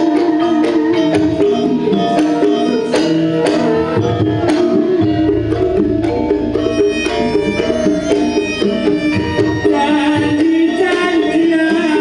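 Live Javanese campursari music: a gamelan ensemble with kendang hand-drum strokes and keyboard plays a steady, rhythmic accompaniment, with a bass line coming in about five seconds in and a voice singing over it.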